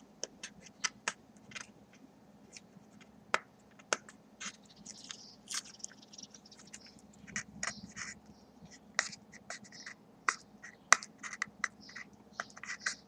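Packaging being handled and picked open, cardboard and tape: irregular sharp clicks and taps with short rustles.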